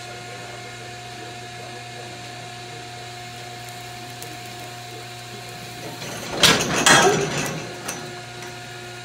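Steady electrical hum during hot branding of a heifer with an electric branding iron. About six seconds in, a loud rough burst of noise lasting under two seconds stands out.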